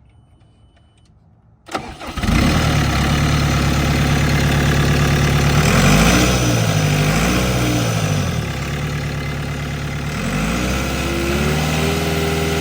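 Volvo MCT125C compact track loader's diesel engine starting about two seconds in, then running. Its speed rises and falls in the middle, then climbs to a steady higher speed near the end.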